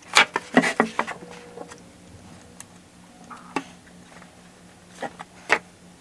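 Sharp taps and clicks from fret installation on a ukulele fretboard: several close together in the first second, then a few single clicks spaced a second or more apart.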